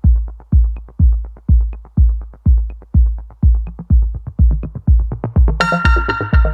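Electronic dance music with a steady, deep kick drum about twice a second; a bright synth chord comes in about five and a half seconds in.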